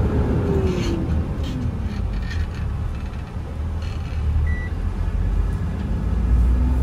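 Tata Prima 5530.S truck's diesel engine heard from inside the moving cab: a steady low rumble whose engine note falls away in the first couple of seconds, then climbs again from about five seconds in. A few light clicks and one short high beep about midway.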